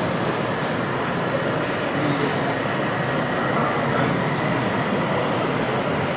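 Steady exhibition-hall background noise, with an OO gauge model train running on a layout.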